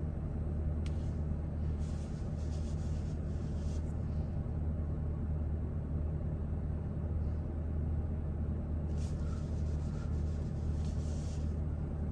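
Car engine idling with a steady low hum, heard from inside the cabin.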